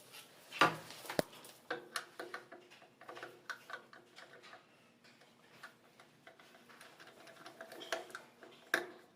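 Scattered, irregular light clicks and taps of parts and tools being handled while a gas cooktop is fitted and connected.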